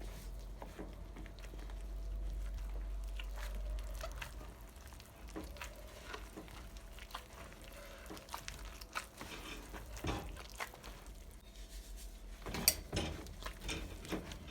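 Kitchen handling sounds: scattered light knocks and clicks of utensils and dishes, with a low rumble during the first few seconds and a louder cluster of knocks near the end.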